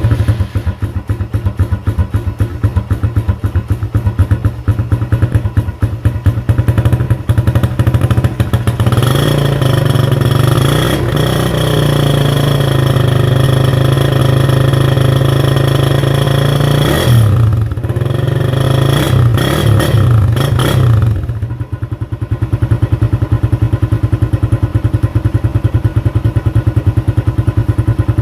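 Suzuki Raider 150 carb's single-cylinder four-stroke engine running through its stock exhaust with the catalytic converter removed. It idles in quick, even pulses, is held at higher revs from about nine seconds in and blipped a few times near the middle, then drops back to idle for the last several seconds.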